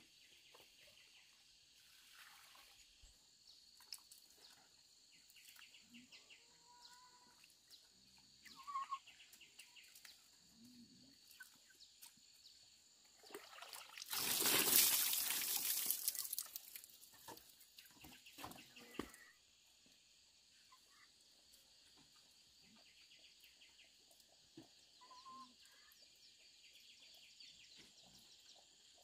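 Rural outdoor ambience: a steady high buzz of insects with a few short bird or chicken calls. Midway a loud rushing noise lasts about three seconds and stands out over everything else.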